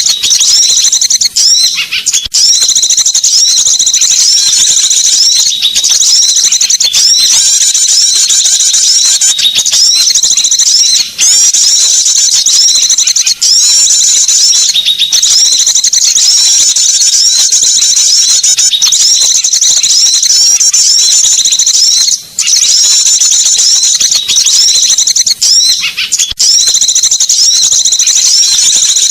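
Bird lure recording of small songbirds: loud, unbroken high-pitched chattering and trilling calls, broken by a few brief gaps.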